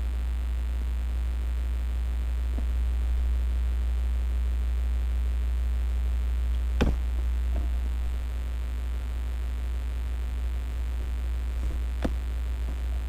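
Steady low hum, with two sharp knocks about five seconds apart.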